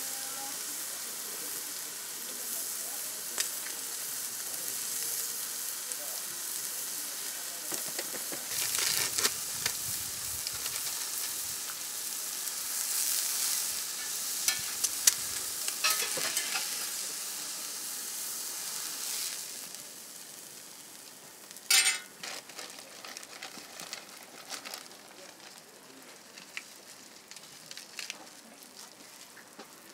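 Hamburger patty and fried egg sizzling on a flat-top griddle, a steady hiss with small crackles that fades to a softer frying about two-thirds in. A short sharp knock sounds shortly after the fade.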